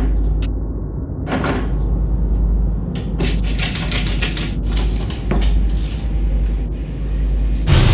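A metal lever door handle rattled and jiggled in quick clattering bursts, the longest a run of rapid rattles in the middle, ending in a loud thump. A steady low hum runs underneath.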